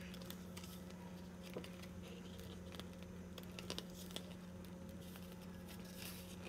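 Pages of a glossy photobook being turned by hand: faint paper rustles and a few light taps, over a steady low hum.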